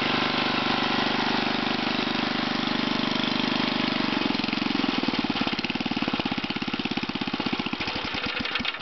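A 1978 JC Penney rototiller's 5 hp Briggs & Stratton single-cylinder engine runs steadily, then is shut off about halfway through. Its firing beats slow and spread out as it coasts to a stop near the end.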